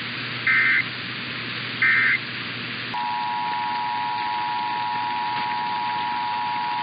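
Emergency Alert System tones. First come two short bursts of SAME data tones, about a second and a half apart: the end-of-message code. About three seconds in, the steady EAS two-tone attention signal starts and holds without a break.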